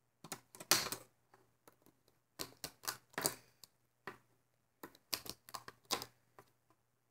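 Plastic band loom and rubber bands being handled: irregular sharp clicks and taps in small clusters.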